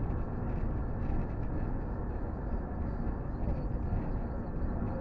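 Steady road noise of a car driving: a constant engine and tyre rumble.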